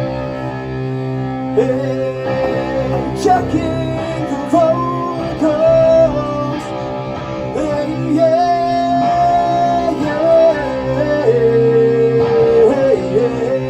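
Rock band playing loud through a PA: a steady, held low chord with a melody of long sustained notes stepping up and down above it.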